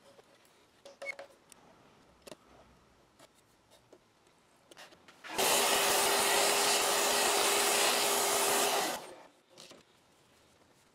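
A few light scrapes and clicks of a scraper working old putty out of a wooden window frame, then a shop vacuum runs for about three and a half seconds, a steady rush of air with a steady hum, its nozzle held into the frame to suck up the putty debris, and cuts off suddenly.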